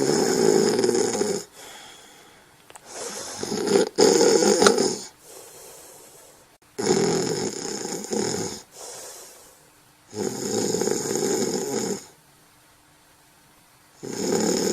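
Someone asleep snoring in a slow, steady rhythm: a harsh rasping snore about every three and a half seconds, each lasting a second and a half to two seconds, with quieter breaths between. Four full snores, and a fifth begins near the end.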